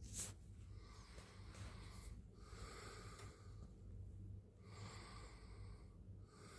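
Domestic cat purring, faint and close: a steady low rumble that swells and fades with its breaths.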